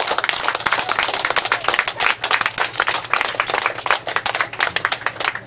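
A small crowd applauding: many hands clapping fast and unevenly.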